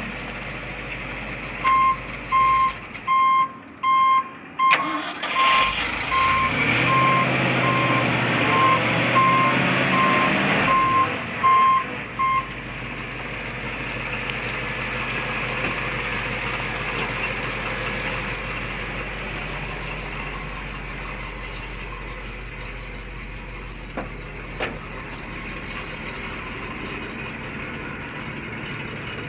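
A vehicle's backup alarm beeps evenly, about three beeps every two seconds, for the first ten seconds or so, while an engine revs up and settles back under it. After that a truck engine idles steadily, most likely the Ford F-600's 370 V8 gas engine, with two short clicks near the end.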